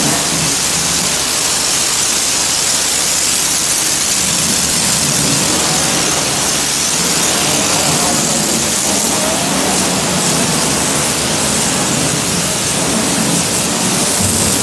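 Car-wash pressure washer lance spraying foam in a steady loud hiss, with a low steady hum beneath it.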